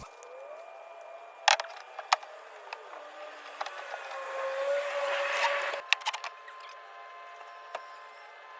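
A few scattered sharp knocks, with a louder noisy stretch about four to six seconds in and a faint steady hum underneath, from work on the wooden wall framing.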